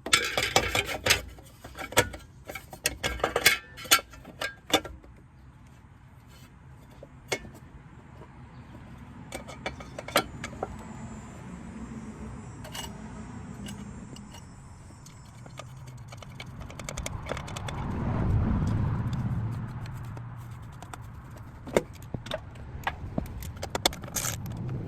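Metal clinking and rattling of hand tools and small engine parts, a quick flurry of clicks for the first few seconds and then scattered clicks. A low rumble swells and fades about two-thirds of the way through.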